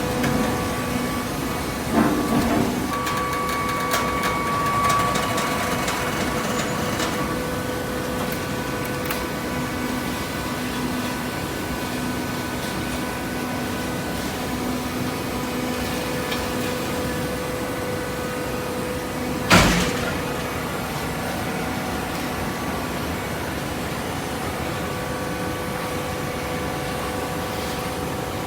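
Hydraulic waste-paper baler running with a steady mechanical hum. A few knocks come about two seconds in, and one loud, sharp knock comes about twenty seconds in.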